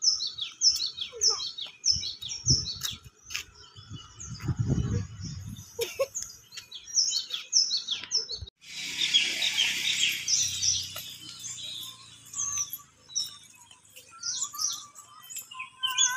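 Birds chirping, many short, high, falling chirps repeated in quick runs. There is a low rumble around four to five seconds in and a brief burst of rustling noise a little after halfway.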